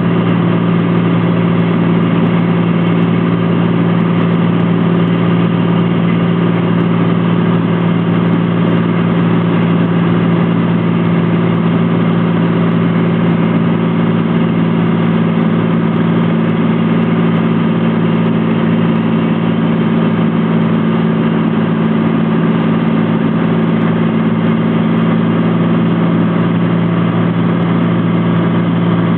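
Steady drone of a Cessna T182T Turbo Skylane's turbocharged six-cylinder engine and propeller in flight, a strong, even low hum that holds without rising or falling.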